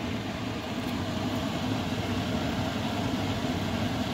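Sweet and sour sauce boiling in a frying pan while cornstarch slurry is stirred in, over a steady mechanical hum.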